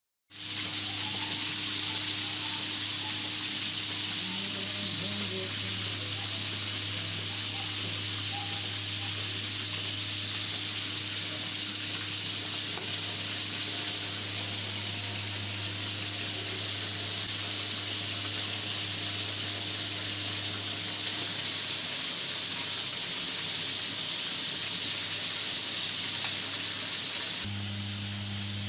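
Steady hiss over a low steady hum, changing abruptly near the end.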